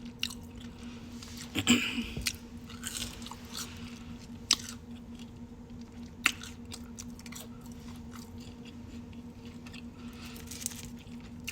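A person chewing and biting food close to the microphone, with wet mouth clicks and a few sharper snaps scattered through, over a faint steady hum.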